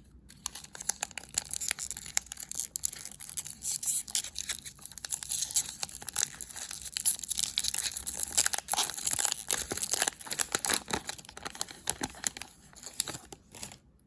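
Wrappers of 2020-21 Upper Deck Series 2 hockey card packs being torn open and crinkled, a dense crackling run of many small snaps that stops shortly before the end.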